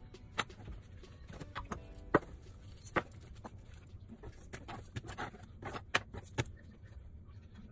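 Scattered light clicks and taps, a dozen or so, of hand work on a plastic cutting board: metal fish-bone tweezers handled and set down, and coarse salt scattered over fish fillets. The sharpest tap comes about two seconds in.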